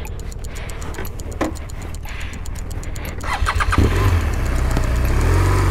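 BMW police motorcycle's boxer-twin engine being started: a short burst of starter cranking about three seconds in, then the engine catches and runs steadily, noticeably louder.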